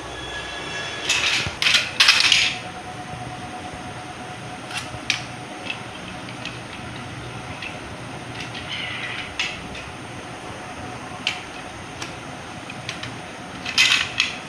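Small toy cars clicking and clattering as a toddler handles them. There is a burst of rattling one to two seconds in, scattered single clicks after it, and another burst near the end.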